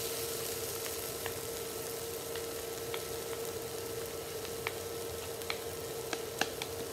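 Cauliflower fried rice sizzling in a nonstick frying pan while two wooden spatulas stir and toss it, with scattered light clicks of the spatulas against the pan, more of them in the second half. A steady hum runs underneath.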